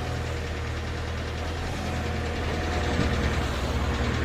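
An engine running steadily with a fast, even low pulse, getting a little louder about three seconds in.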